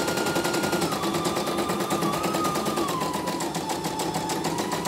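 CNY computerized embroidery machine stitching a design. The needle runs in a fast, even ticking of about nine or ten stitches a second over a motor whine that steps up and down in pitch a few times.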